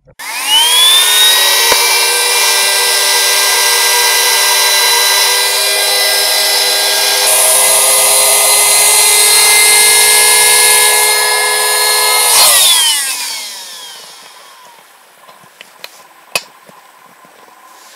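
Small electric air compressor inflating an inflatable side float. Its motor spins up with a rising whine, runs steadily for about twelve seconds, then winds down and stops. A faint click follows near the end.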